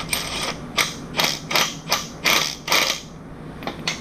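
Ratchet wrench worked back and forth in short, rapid strokes, each a brief metallic rasp of clicks, about two or three a second, then two quick ones near the end.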